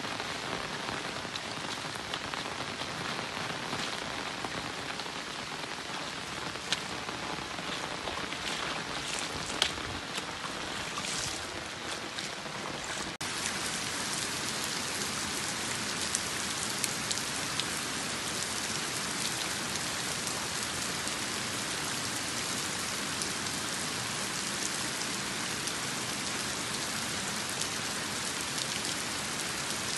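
Heavy rain falling on paved paths, grass and trees as a steady hiss, with a few louder single drop ticks in the first half. About 13 seconds in the sound changes abruptly to a slightly louder, brighter rain hiss.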